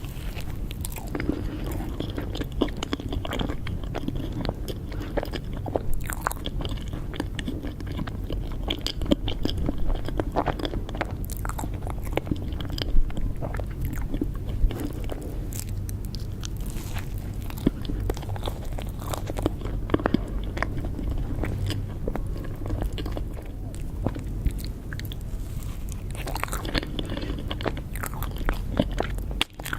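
Close-miked biting and chewing of cake: dense, irregular mouth clicks and smacks over a steady low hum, with a brief break just before the end.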